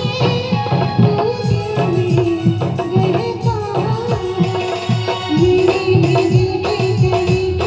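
Live band playing an instrumental passage through a PA: an electronic keyboard melody, held and sliding in pitch, over a steady tabla-style drum beat.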